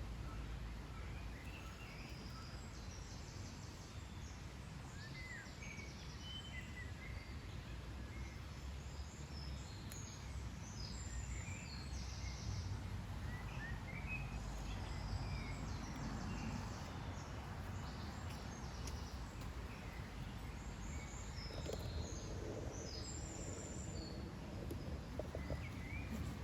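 Several small birds chirping and twittering in short, scattered calls over a steady low background rumble of outdoor ambience.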